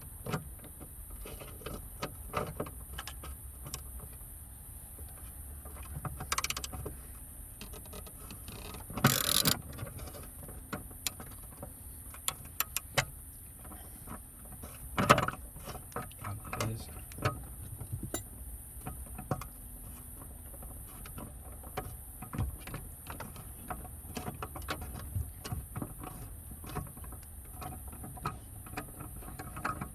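Hand tools working loose a 13 mm screw: scattered metal clicks and clinks, with a louder clatter about nine seconds in and another sharp knock around fifteen seconds.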